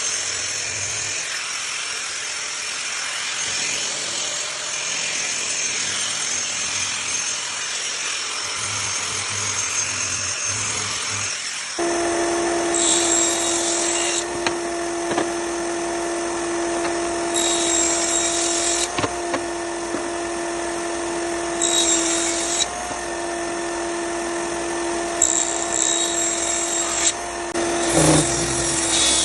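An electric power tool working on parquet wood. For about twelve seconds it makes an even rasping noise. Then a steady motor hum sets in, with short, brighter grinding spells every few seconds.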